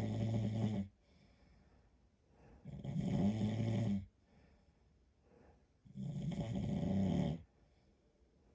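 A man snoring in steady sleep: the end of one snore just after the start, then two more snores of about a second and a half each, roughly three seconds apart, with quiet breaths between.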